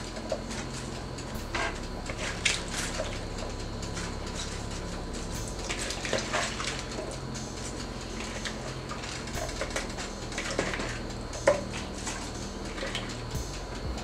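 Sliced vegetables being dropped by hand from a bowl into a frying pan: scattered light knocks and clicks of pieces landing and of the bowl and pan being touched, the sharpest knock about eleven and a half seconds in.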